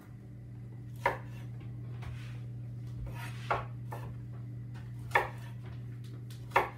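Chef's knife cutting Brussels sprouts on a wooden cutting board: four sharp knocks of the blade hitting the board, a second or two apart, over a steady low hum.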